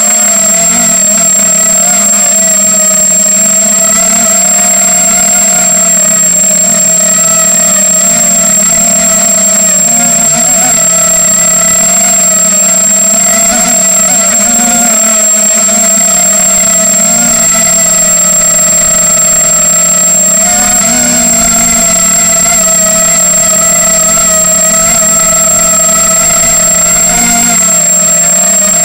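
Brushless motors and propellers of a 250-size FPV racing quadcopter in flight, a loud steady whine that wavers slightly in pitch with small throttle changes. A constant thin high-pitched tone sits over it.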